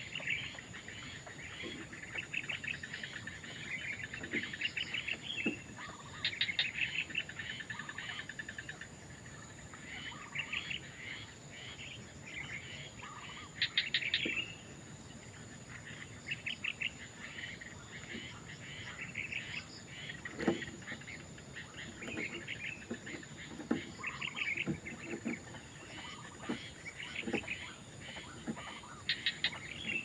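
Heron nestlings giving rapid trains of ticking, chattering calls, bout after bout every second or two.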